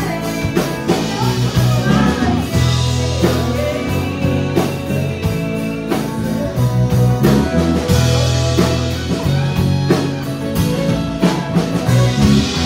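Live country band: a woman singing lead over acoustic guitar, bass and drums, with fiddle.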